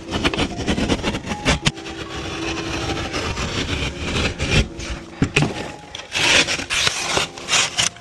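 Rough, irregular scraping and rasping in short strokes.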